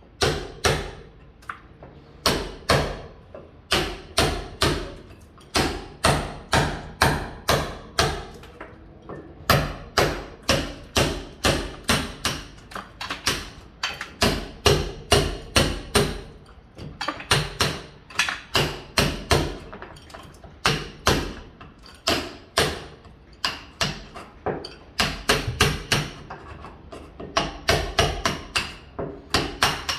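Mason hammering on a building site: sharp hammer blows struck about two to three times a second in runs, with brief pauses between runs.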